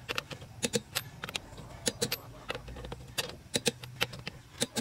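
Click-type torque wrench on a car wheel's lug nuts as they are tightened to torque: sharp metallic clicks, often in close pairs, coming every half second or so.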